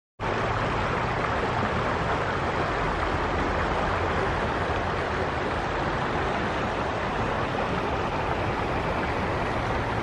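Small river flowing: a steady rushing of water.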